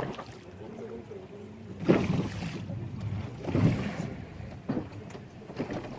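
Speedboat engine running with a steady low hum, broken about two and three and a half seconds in by two louder rushes of noise.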